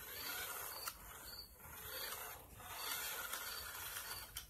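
Cheap toy RC truck's small electric motor and gears whirring as it drives back and forth on carpet, in about three spurts that swell and fade.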